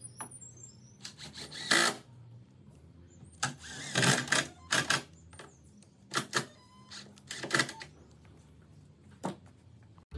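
Cordless impact driver driving screws into wooden deck boards in a series of short bursts.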